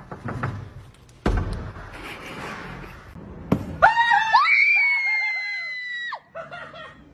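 A few knocks and rustles, then a long, high-pitched scream that rises, holds for about two seconds and cuts off suddenly.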